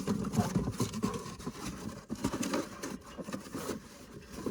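Irregular rustling, scraping and knocking of hands working a boxed muffler out of its packaging, a struggle to get it out, with a sharp knock at the start.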